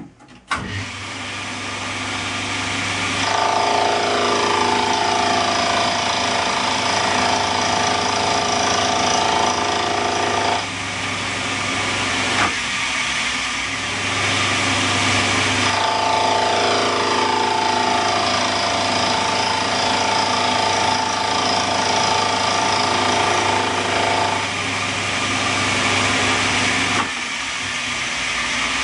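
Milling machine running, its cutter machining tooth slots in a cast pulley. The machine starts suddenly just after the start and hums steadily, and two cutting passes of several seconds each add a whine.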